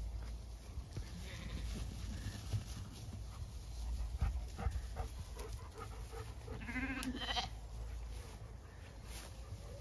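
Zwartbles sheep bleating: one clear bleat about seven seconds in, with a few fainter calls from the flock before it.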